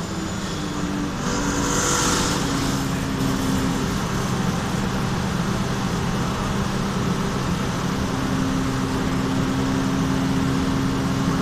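An air-conditioning system running steadily with a pitched hum, the abnormal noise the recording is about. A brief hiss comes about one to two seconds in.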